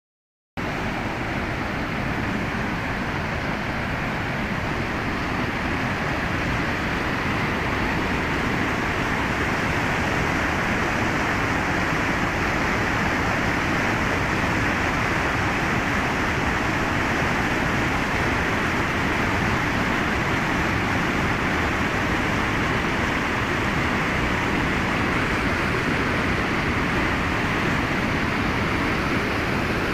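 Mountain stream rushing and splashing over boulders in small cascades: a steady, unbroken rush of white water close by, cutting in abruptly just after the start.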